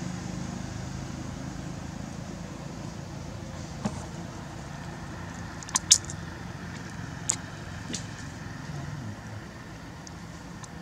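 Steady low background rumble with a few sharp clicks or snaps, the loudest a quick pair about six seconds in.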